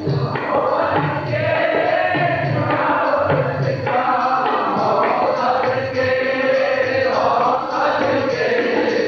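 Sikh kirtan: men's voices singing a shabad together to harmonium accompaniment, with tabla marking the beat in deep bass strokes.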